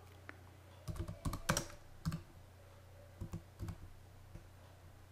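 Computer keyboard keys being typed in short irregular bursts of clicks, with pauses between them, over a low steady hum.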